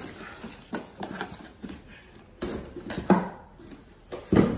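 Cardboard boxes being handled and shifted on a tiled floor: a series of scuffs and knocks. The loudest thumps come a little after three seconds in and near the end.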